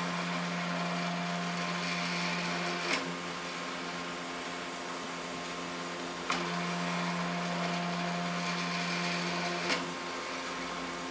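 Stepper motor turning the platen roller of an Epson LQ2070 dot matrix printer back and forth at 1400 steps per second: a steady hum and whine, broken by a sharp click at each change of direction, three times about three and a half seconds apart.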